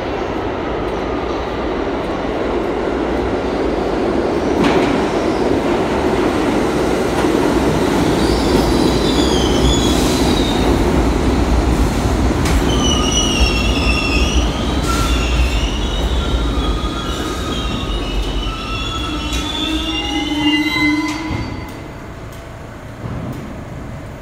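A Bombardier R62A subway train pulling into a station: a steady rumble of steel wheels on rail with sharp clacks over rail joints, and high, wavering squeals as it brakes. The rumble and squealing cut off near the end as the train stops.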